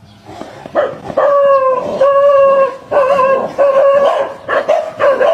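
Dogs barking and howling in a run of drawn-out calls, starting about a second in.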